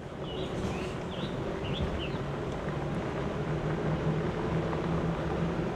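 A vehicle's engine running steadily with tyre and trail noise as it crawls along a rough, rocky dirt track. A few bird chirps come in the first two seconds.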